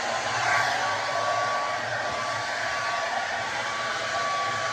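Handheld hair dryer running steadily while blow-drying hair: an even rushing blow with a faint steady whine.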